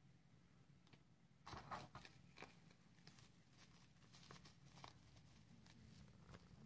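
Faint crinkling and rustling of drink-mix stick packets and a cardboard box being handled, with a cluster of crackles about one and a half seconds in and scattered crinkles after.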